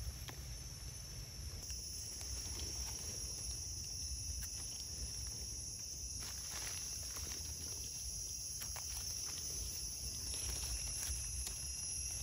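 Steady high-pitched drone of forest insects, with soft rustles of leaf litter from footsteps and hands moving through it now and then.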